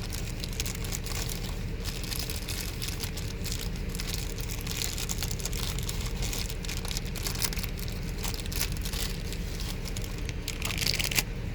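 Irregular crinkling and rustling from something being handled at close range, a louder burst near the end, over a steady low hum.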